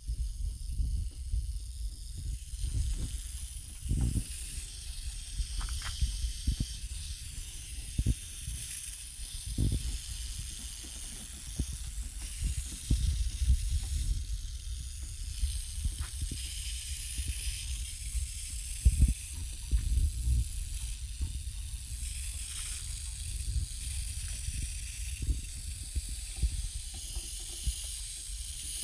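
Garden hose spray nozzle watering potted succulents: a steady high hiss of spraying water, with irregular low thumps and rumble on the microphone.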